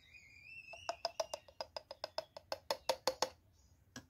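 A high, thin call rising slightly in pitch, then a quick, even run of about fifteen sharp, ringing clicks, roughly six a second, that stops suddenly, with one last click near the end.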